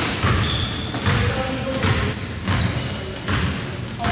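Basketball being dribbled on the court, a thud roughly every half second to second, with short high sneaker squeaks and some voices.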